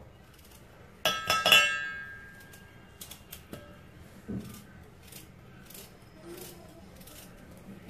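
Knife slicing raw potato over a stainless steel bowl, with a cluster of ringing metallic clinks about a second in. Scattered lighter taps follow, with a dull thud about four seconds in.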